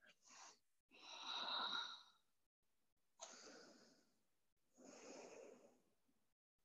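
A woman breathing slowly and deeply while catching her breath after exertion: a brief breath, then three long breaths about a second and a half apart, the first the loudest with a faint whistle in it.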